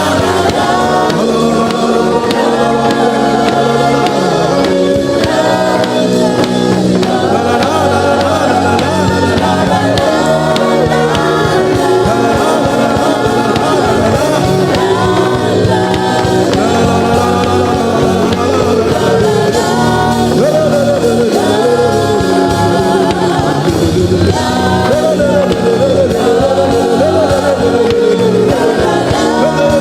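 Live gospel worship singing with instrumental accompaniment, continuous and loud.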